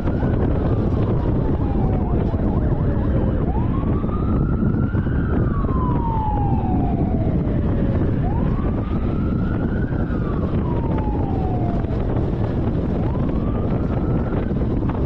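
Police siren on a slow wail, each cycle rising quickly and then falling slowly, repeating about every four and a half seconds, over steady wind and road noise from the moving car.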